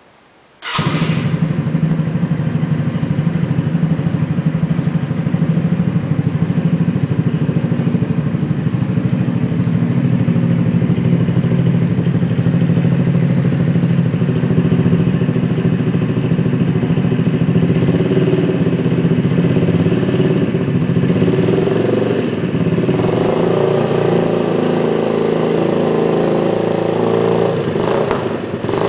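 Suzuki Burgman AN125 scooter's single-cylinder four-stroke engine running through a Roncar aluminium sport exhaust. It comes in suddenly about a second in and runs steadily, and its note shifts around two-thirds of the way through.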